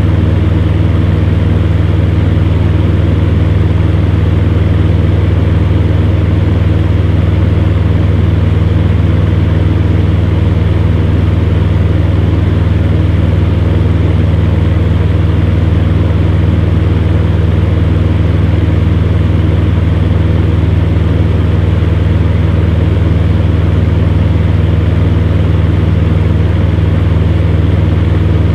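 Fan heater running steadily: a deep, unchanging motor hum under a constant rush of blown air.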